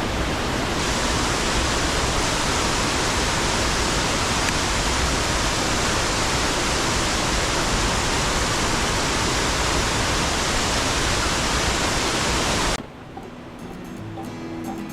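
Waterfall pouring into a rock pool, a loud steady rush of water that cuts off suddenly about thirteen seconds in. Quiet acoustic guitar music begins just after.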